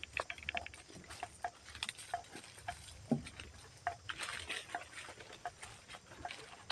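Footsteps through dry leaf litter and brush: irregular rustling and crackling as people walk through undergrowth.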